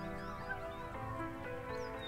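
Background music with held notes that change every half second or so.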